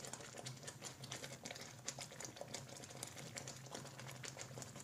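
Thick semolina halwa bubbling and spluttering in a kadhai, with quick, irregular small pops and crackles as the last of its sugar syrup cooks off.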